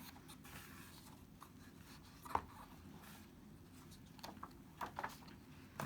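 Quiet room with soft paper rustles and light taps from a picture book being handled: one sharper tap a little past two seconds in, then several softer ones between about four and five seconds in.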